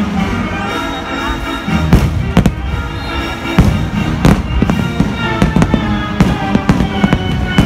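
Aerial fireworks shells bursting, a string of sharp bangs from about two seconds in, over the fireworks show's music soundtrack.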